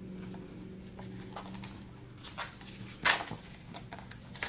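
Paper pages of a ring-bound planner being handled and turned: soft rustles and small clicks, with a louder crisp rustle about three seconds in, over a steady low hum.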